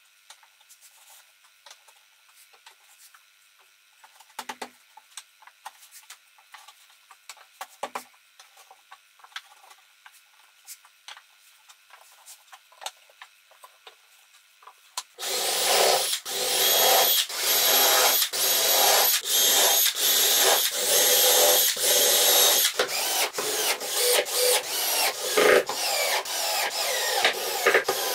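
Light knocks and taps as pine boards are set in place. Then, about halfway in, a cordless drill drives screws into the pine top boards in a run of short bursts, each with a steady motor whine.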